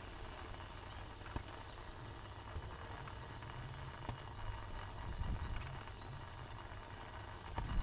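Water boiling in a pot of eggs on a gas burner: a steady low rumble with scattered light clicks.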